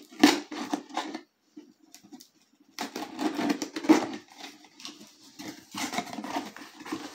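Packaging being opened and handled by hand, rustling and crinkling in irregular bursts, with a short lull about a second in.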